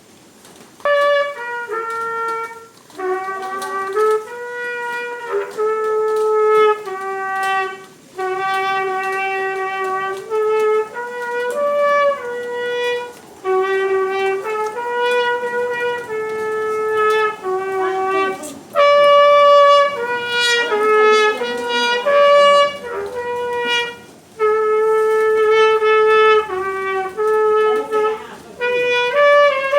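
Solo trumpet playing a melody one note at a time, holding each note for a second or two, with short breaks between phrases.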